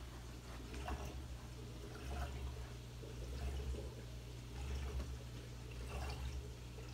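A 150-gallon reef aquarium running: a steady low hum of its pumps, with water trickling and splashing softly.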